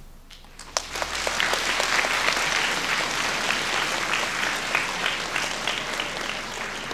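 Audience applause: a large crowd's clapping breaks out a little under a second in and keeps going densely, easing slightly near the end.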